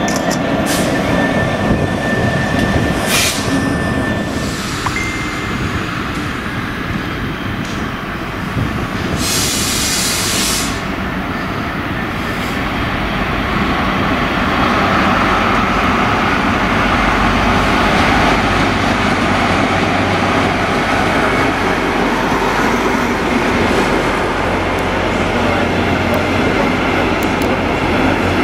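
A DB class 218 diesel-hydraulic locomotive running in with a train of double-deck coaches: engine running steadily, with wheel and rail noise and a brief hiss about ten seconds in. The first few seconds hold a Euro Cargo Rail class 247 (Class 66) diesel locomotive shunting.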